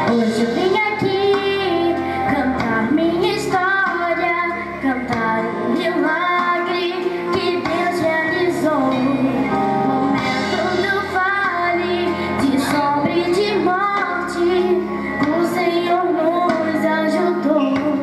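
A young girl singing a gospel worship song into a microphone over instrumental accompaniment, a continuous melody with vibrato on the held notes.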